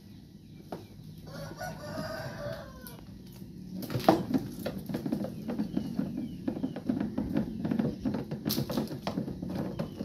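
A rooster crows once, starting about a second in and lasting about a second and a half. From about four seconds in, a screwdriver prying at a twin-tub washing machine's plastic casing makes a run of clicks and scraping, the loudest click at about four seconds.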